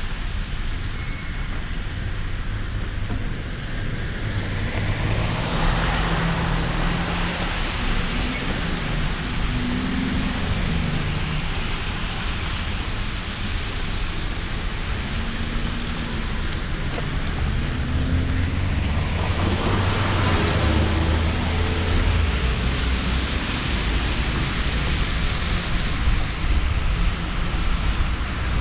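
Car driving on a rain-soaked road, heard from a microphone on its roof: steady tyre hiss and engine hum under a low wind rumble, with the hiss swelling twice, at about six seconds and again near twenty seconds.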